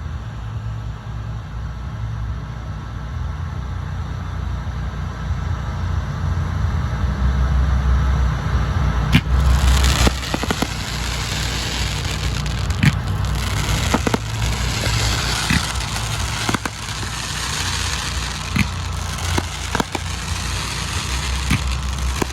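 Fireworks going off: separate sharp reports, about eight of them, from about nine seconds in, with crackling after them, over a steady low rumble.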